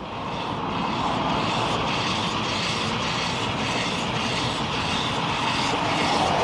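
Narrow-gauge train running on the track: a steady rumble that swells louder over the first second and again near the end.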